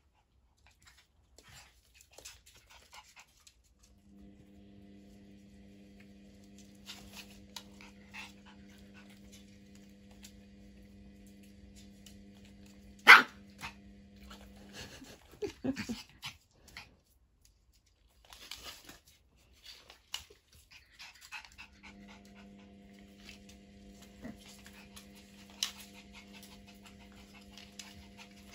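A Cane Corso and a Shiba Inu puppy play-fighting on a tile floor: scattered scuffles and claw clicks, with a few short dog vocalisations and one loud sharp sound about halfway through. A steady low hum sets in a few seconds in, drops out for a while after the middle, then comes back.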